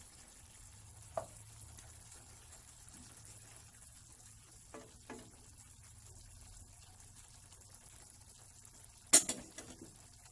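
Wooden spatula stirring ground pork and bitter gourd in a stainless steel saucepan, with a few light knocks against the pan. About nine seconds in the spatula is set down on a plate with one loud clatter and a few smaller rattles.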